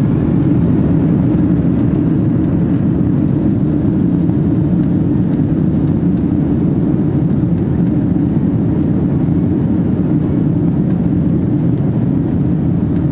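Steady low rumble of a Boeing 767-300ER's engines and airflow, heard inside the cabin over the wing, with the airliner at runway level on landing.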